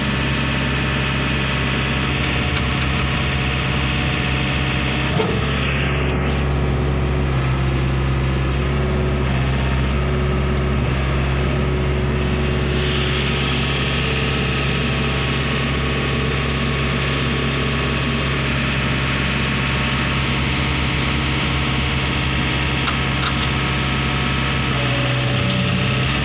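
Silt pusher machine's engine running steadily at an even pitch, with a single small knock about five seconds in.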